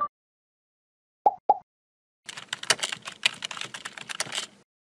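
Two short pops, then a rapid run of computer keyboard typing clicks lasting a little over two seconds, as a sound effect for text being typed into a search bar.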